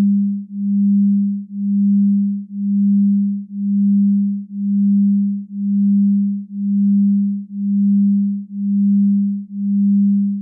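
A low, pure electronic tone swelling and fading in even pulses about once a second.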